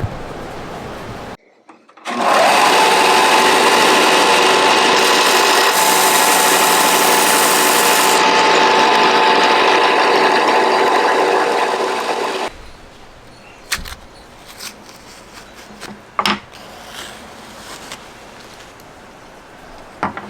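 An electric power tool runs loudly and steadily with a whine for about ten seconds, then shuts off. A few light knocks and clicks follow.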